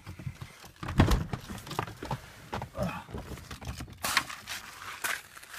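A Lamborghini Gallardo's door is unlatched and opened with a sharp clunk about a second in, followed by uneven footsteps crunching on a gravel driveway.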